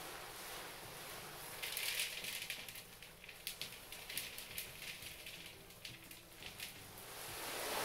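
Soy hull pellets poured from a plastic bag into a plastic bowl. From about two seconds in they fall as a pattering stream of many small clicks, which tails off near the end.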